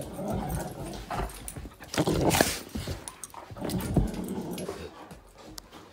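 An adult dog and a five-month-old puppy play-fighting, their rough-housing noises coming in rough bursts with louder peaks about two and four seconds in.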